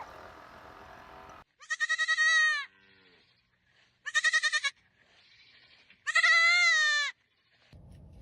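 Three loud, high-pitched bleats from a goat or sheep, about a second long each with short pauses between, the first two opening with a quick wavering quaver.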